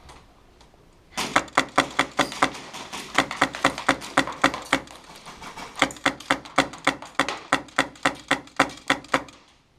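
Airsoft guns firing in quick succession: a fast run of sharp cracks, about five a second, starting about a second in and stopping shortly before the end.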